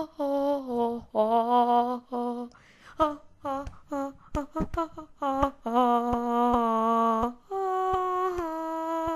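A female voice humming a slow, wordless tune. It holds long notes, some with a wavering vibrato, and in the middle breaks into a run of short notes.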